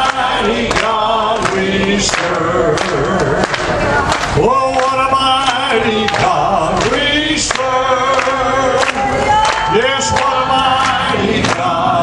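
A congregation singing a gospel chorus together, many voices to a steady beat.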